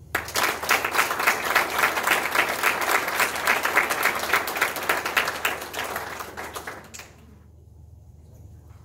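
Audience applauding, many hands clapping in a dense patter that dies away about seven seconds in.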